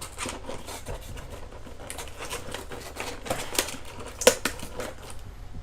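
Toy packaging being worked open by hand: a quick, irregular run of plastic and cardboard crackles and clicks, with one sharper snap about four seconds in.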